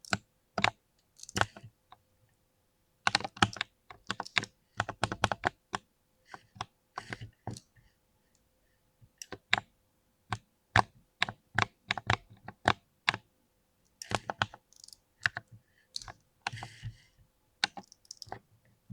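Keystrokes on a mechanical keyboard with over-lubricated switches, typed in irregular bursts of quick clicks with short pauses between runs.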